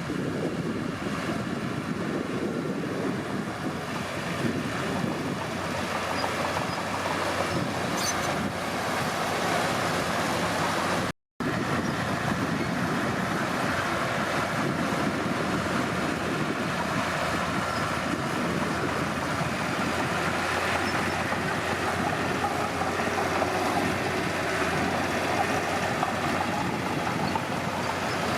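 Komatsu D31P bulldozer's diesel engine running steadily while working. The sound drops out completely for a moment about eleven seconds in.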